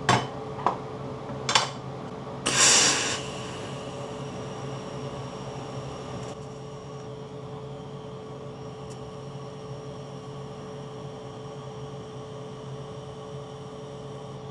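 A few sharp clicks of steel and tools being handled, a short hiss about two and a half seconds in, then a steady low machine hum from the TIG welding setup as the welder gets ready to weld the tube seam.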